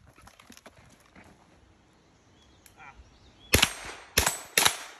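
Three gunshots fired at a steel target, in quick succession about half a second apart, starting a little after halfway through. Each shot trails off briefly.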